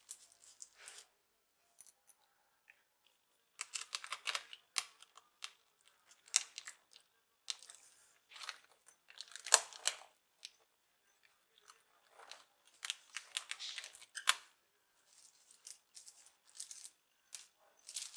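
A small tool scraping hardened epoxy out of laptop screw heads: irregular short scratchy scrapes with a few sharp clicks, the sharpest about nine and a half and fourteen seconds in.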